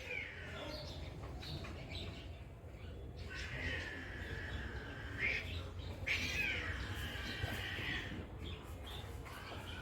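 A cat crying with about four long, drawn-out meows, each up to about two seconds, the pitch sliding within each call.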